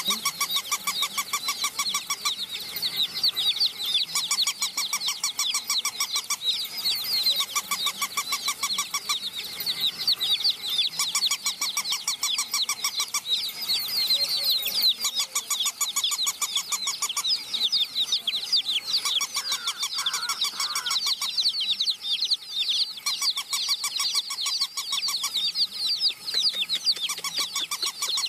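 A crowd of domestic chicken chicks peeping without pause, many shrill, downward-sliding cheeps overlapping one another.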